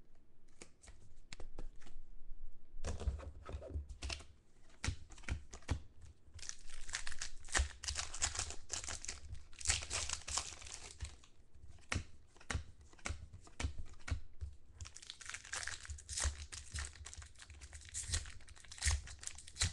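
Foil trading-card pack wrapper and plastic card sleeves crinkling and tearing in the hands as a pack is opened and cards are handled, in irregular bursts with small clicks.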